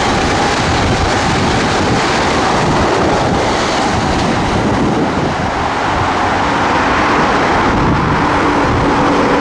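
Metro-North M8 electric commuter train running through the station at speed: a loud, steady rush of wheels on rail and passing cars.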